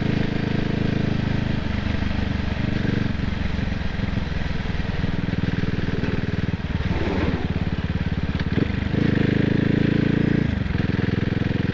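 CCM Spitfire's single-cylinder four-stroke engine running under way, its note shifting several times with throttle and gear. It rises about seven seconds in and is louder for a stretch from about nine seconds.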